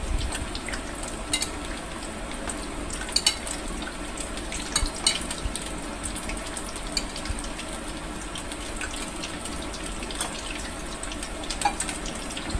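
Soya chaap deep-frying in hot oil, a steady sizzle. A few sharp clinks of a spoon against a glass jar and a steel tumbler are scattered through it.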